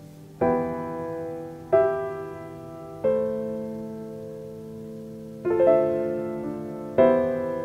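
Background piano music: soft chords struck five times, one every second or two, each fading slowly.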